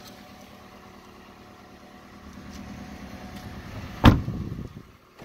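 The rear passenger door of a 2010 Toyota Corolla is shut with one solid thump about four seconds in. The car's engine idles quietly underneath.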